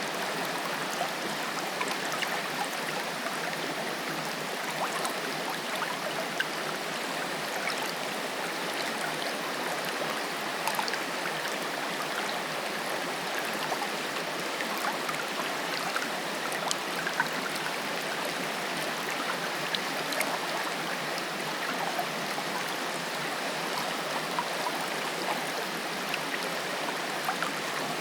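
Waterfall: a steady, even rush of falling water, with small splashes flicking through it.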